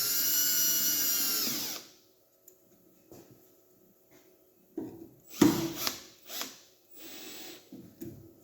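A Milwaukee cordless drill/driver motor whines as it speeds up, runs steadily and winds down, stopping about two seconds in. A few seconds later come several knocks and clatters, the loudest about five and a half seconds in.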